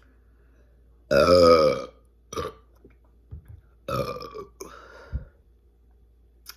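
A woman burping loudly after chugging Coca-Cola, the gas from the carbonated soda coming up. One long, pitched burp comes about a second in, then a short one, then two more around the four-second mark.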